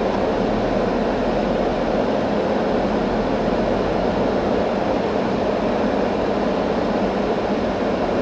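Steady road and engine drone heard inside a moving car's cabin.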